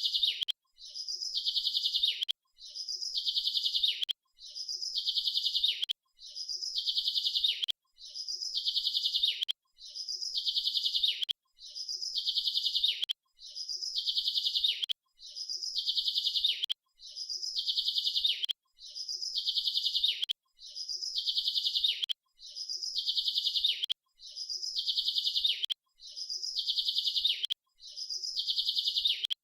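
A bird's rapid, high-pitched trill, repeated identically about every two seconds; each trill grows louder over about a second, then breaks off briefly before the next.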